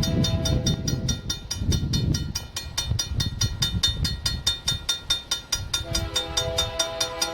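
Railroad crossing bell ringing in a fast, even rhythm, about four to five strokes a second, over the low rumble of a passing train. About six seconds in, a steady chord of several tones comes in, like a locomotive horn sounding.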